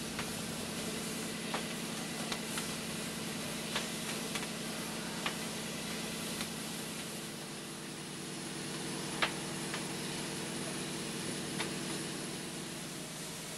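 Steam locomotive boiler under steam test: a steady hum and hiss, with a scattering of light, sharp metal taps, mostly in the first half, as the boiler and its stays are worked over by hand.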